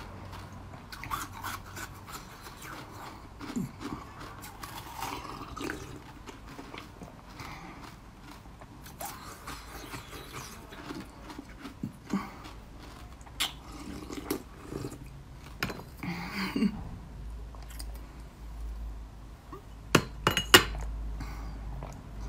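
Close-up chewing and mouth sounds of someone biting and eating a soft, round yellow food, with small wet clicks throughout. Two sharp clicks, the loudest sounds, come a couple of seconds before the end.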